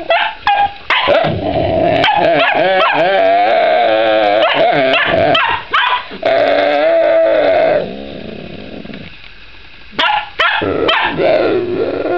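Dogs barking at each other over a rawhide chew: sharp yips and barks mixed with long, wavering, whining cries that rise and fall in pitch. They ease off about two-thirds of the way through, then a fresh round of yips and cries starts near the end.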